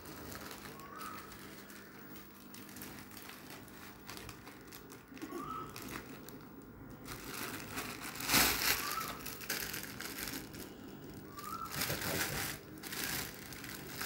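Plastic courier mailer and packaging crinkling and rustling as it is cut open with scissors and handled, with louder bursts of crinkling about eight and twelve seconds in.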